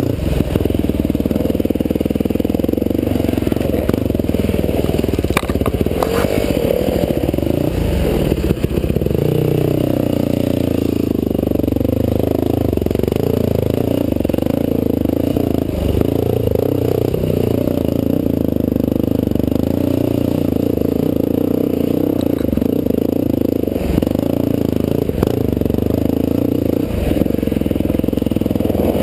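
Dirt bike engine running on a trail ride, its pitch rising and falling with the throttle, with a few short knocks and clatter as the bike goes over the rough track.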